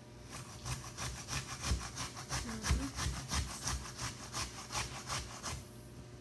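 Apple being grated by hand on a metal box grater: quick, even rasping strokes, about five a second, that stop shortly before the end.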